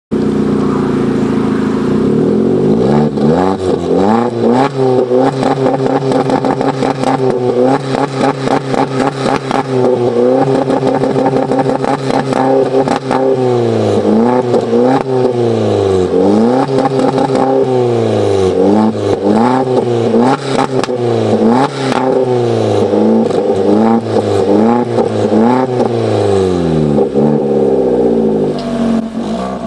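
Ford Fiesta engine revved repeatedly through a Roncar Coyote Quattro 2Way+ switchable aftermarket exhaust. It holds steady at first, then rises and falls in quick revs about every second or two, and settles to a steadier, slightly quieter note near the end.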